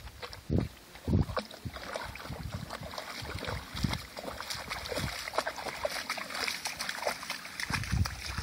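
Tall meadow grass swishing and crackling as it brushes past, a dense, steady rustle, with a couple of low thumps in the first second or so.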